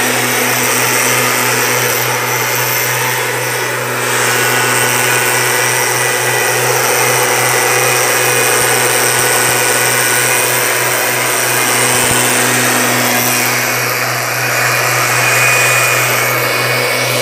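STIHL backpack mist blower's two-stroke engine and fan running steadily while it blows herbicide mist through its nozzle.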